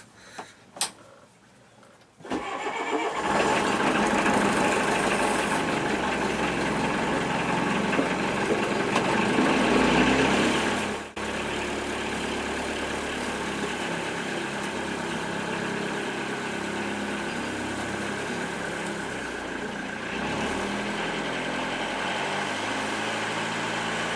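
A boat engine starting: a click about a second in, then the starter cranks and the engine catches quickly and runs. It breaks off abruptly about eleven seconds in, then carries on at a steady idle. The engine is turning a newly fitted alternator that is charging the lithium battery at about 35 amps.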